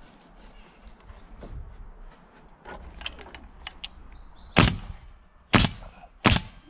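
DeWalt pneumatic coil nailer firing three times, the shots about a second apart and sharp, driving nails into a fly rafter board. Before the shots come faint clicks and knocks from the board being handled.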